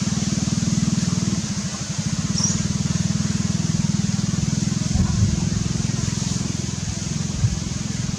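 A small engine running steadily with a low, even hum, with a couple of soft knocks about five seconds in and again near the end.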